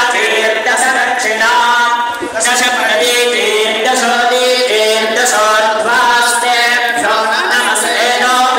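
Devotional chant sung by voices without instruments, in long held notes that glide from one pitch to the next.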